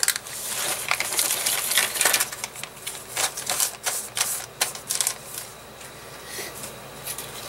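Small hard clicks and clatters of resin kit parts and a metal link chain tumbling out of a plastic bag onto a cutting mat. The clicking comes in quick runs and thins out after about five seconds.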